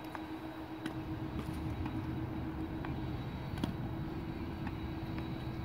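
Tennis balls bouncing and being hit, with one sharp racket strike on the ball about three and a half seconds in as the loudest sound. Fainter single ball knocks come a few times before and after, over a steady low background rumble with a constant hum.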